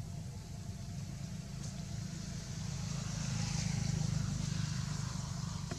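Low rumble of a passing motor vehicle, growing louder to a peak about four seconds in and then easing off.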